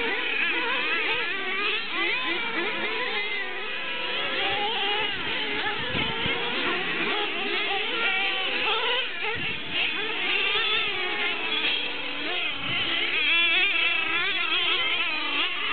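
Several small engines of radio-controlled race trucks revving up and down over one another, a high, buzzing chorus whose pitch keeps rising and falling as the trucks accelerate and brake.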